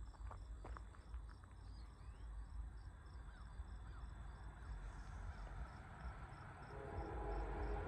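Crickets chirping in a steady rhythm, a little over two chirps a second, over a faint low rumble. Near the end a steady hum comes up, the sound of an approaching freight train's locomotives.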